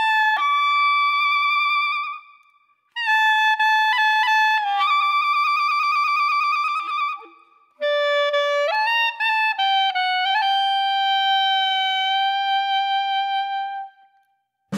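Background music: a solo wind instrument plays a slow melody, one note at a time, in three phrases with short breaks between them, ending on a long held note.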